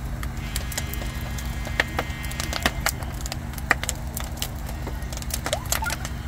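Wood bonfire crackling, with sharp, irregular pops and snaps from the burning boards over a steady low rumble.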